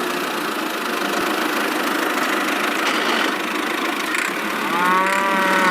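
Tractor engine running steadily at idle after starting. A held, pitched tone sounds over it for about a second near the end.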